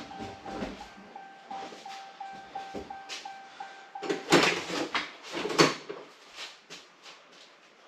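Pickup truck's electronic warning chime beeping about three times a second, which stops about four seconds in. Two loud knocks and rattles follow, a little over a second apart, with a few lighter knocks after.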